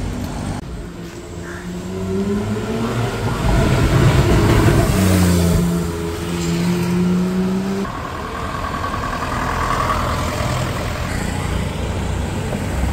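Car engine accelerating, rising in pitch, then holding a steady note for a few seconds before dropping away about eight seconds in, with traffic noise continuing after.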